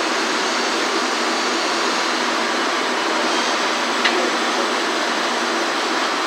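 A steel wire brush scrubbing slag off a fresh weld bead on a steel bar, over a steady rushing background noise, with one sharp click about four seconds in.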